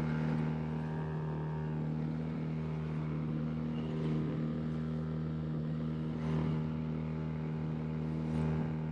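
Outboard motor running at a steady speed, pushing a small boat along, with a few brief splashes of water against the hull.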